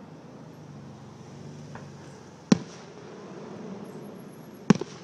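Two aerial firework shells bursting, each a sharp bang: the first about two and a half seconds in, the second near the end, followed closely by a smaller crack.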